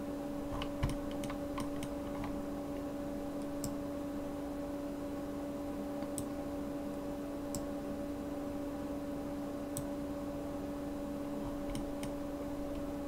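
Scattered computer mouse clicks, about a dozen, irregularly spaced and several coming close together in the first couple of seconds, over a steady low electrical hum.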